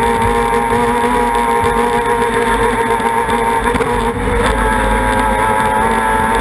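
Racing outboard motor on a tunnel raceboat running flat out at a steady high pitch, with the hiss of spray and rushing water around the lower unit. About four seconds in it briefly dips, then carries on at a slightly changed pitch.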